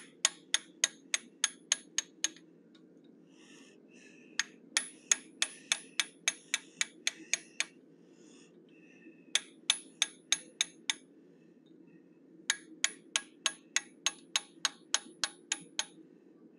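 Hand hammer striking a small punch held against a hot steel bear head in a bolster on the anvil, texturing the inside of the ears. There are four runs of quick, ringing blows, about four a second, with short pauses between them.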